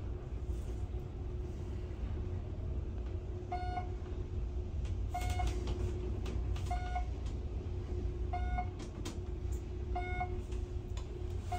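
Dover traction elevator car travelling upward at speed: a steady low rumble with a faint hum. From about three and a half seconds in, a short electronic beep sounds about every one and a half seconds, once for each floor the car passes.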